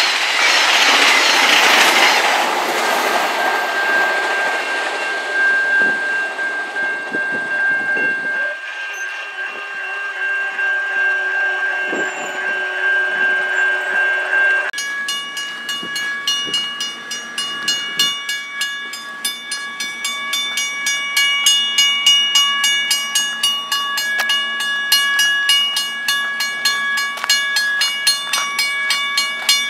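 A VIA Rail passenger train passing close by, its noise dying away over the first few seconds. After a cut about halfway through, a level-crossing warning bell rings with evenly repeated strikes, about two a second.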